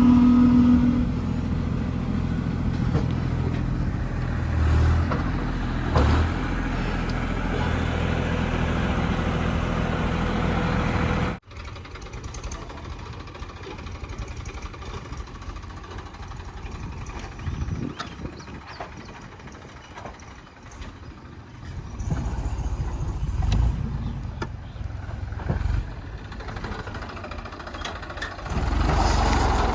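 JCB 3DX backhoe loader's diesel engine running steadily under working load. About a third of the way in it cuts off abruptly to a quieter, more distant engine sound that rises again twice later on.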